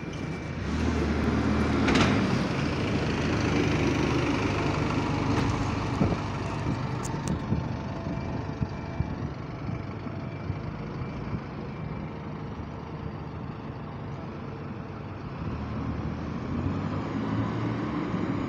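Single-decker bus's diesel engine running with its radiator cooling fan going loudly, swelling over the first few seconds and easing off as the bus moves away. A sharp burst of noise about two seconds in.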